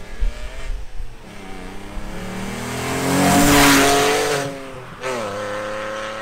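Alfa Romeo 147 GTA's 3.2-litre Busso V6 accelerating hard past and away, revs climbing. It is loudest as the car goes by about three and a half seconds in. The pitch dips at a gear change about five seconds in, then climbs again.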